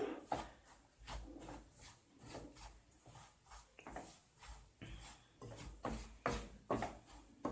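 A spoon stirring and scraping through a pan of roasted wheat flour and gram flour in ghee, in short, irregular, faint strokes as dry ginger powder is mixed in.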